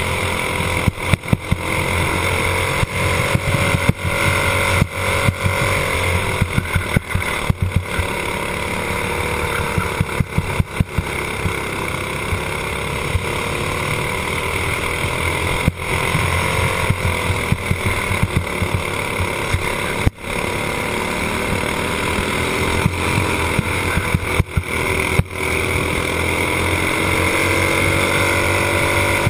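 Racing kart's small single-cylinder engine running hard, recorded onboard, its pitch rising and falling through the corners, with frequent short crackles and dropouts.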